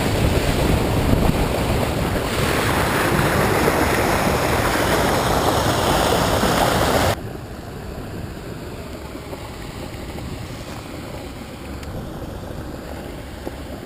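Floodwater rushing out of a culvert into a canal: a loud, steady rush of churning water. About seven seconds in it cuts off suddenly, leaving a much quieter steady hiss.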